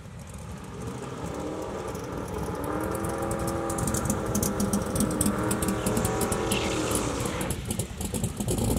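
Drag-racing car engine running and growing steadily louder.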